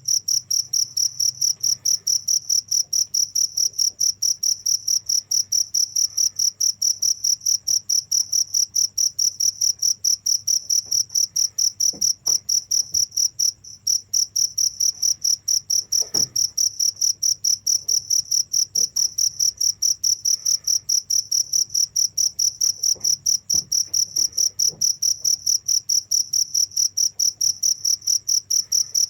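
Cricket chirping in a fast, even rhythm of high-pitched pulses, with one brief break about fourteen seconds in. A faint low hum sits underneath.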